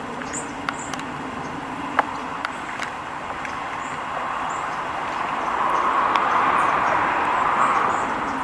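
Steady street ambience with a vehicle passing, its noise swelling through the second half and easing off near the end. A few small clicks and faint high chirps sit over it.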